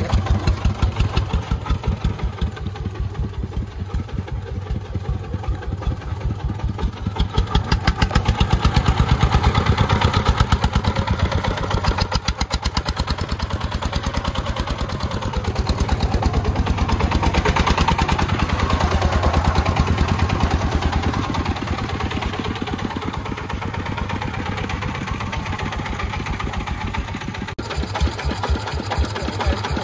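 Single-cylinder 24 hp diesel engine of a loaded three-wheeled công nông truck running with a rapid, even chug while driving. It grows louder twice as it pulls the sand load.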